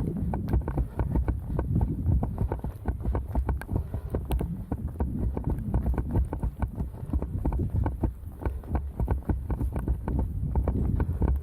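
A runner's footsteps crunching in snow at a steady running pace, a dense series of short crunches, over a low rumble of wind on the microphone.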